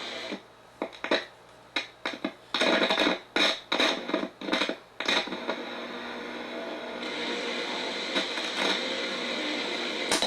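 Static and hiss from a Yorx alarm clock radio's speaker, crackling and cutting in and out irregularly for about five seconds, then settling into a steadier hiss. This is the radio's touchy controls, which have to be wiggled to keep the sound from dropping out.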